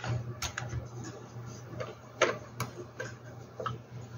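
Scattered clicks and light knocks from hands handling a Hamilton Beach 25430 sandwich maker's plastic shell and nonstick plates, about six in all, the sharpest a little past halfway. A low steady hum runs underneath.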